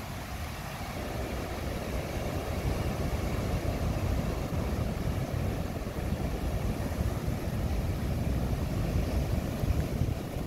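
Strong hurricane wind buffeting the microphone in a low, uneven rumble, over the steady rushing noise of heavy surf breaking on the beach; the gusts grow stronger near the end.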